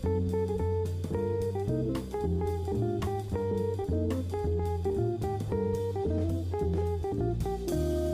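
Instrumental background music: a light plucked-guitar tune over bass and drums. Near the end it settles on a held, ringing chord.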